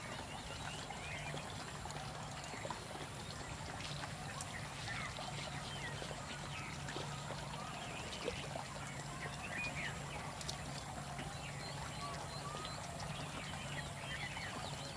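Many short animal calls overlapping throughout, over a steady low hum, with a few sharp clicks.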